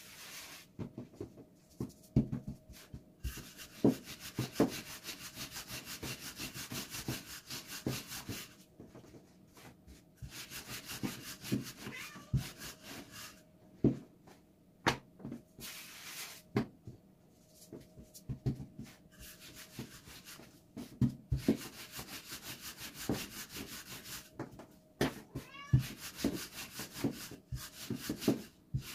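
Hand-rolled börek dough being worked by hand: runs of rapid rubbing strokes lasting several seconds, broken by pauses and occasional sharp knocks.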